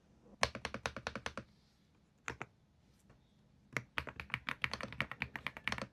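Typing on an EWEADN GS75 mechanical keyboard: a quick run of keystrokes, a pause with two single presses, then a longer stretch of fast, continuous typing.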